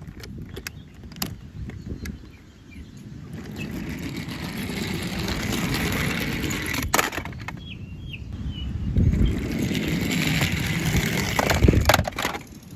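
Toy vehicle's plastic wheels rolling across a hard surface in two long pushes, with sharp clicks and knocks between them.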